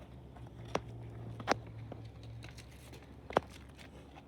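Three sharp knocks and some faint rustling from handling a hoverboard's cardboard box and packaging, over a low steady hum; the loudest knock comes near the end.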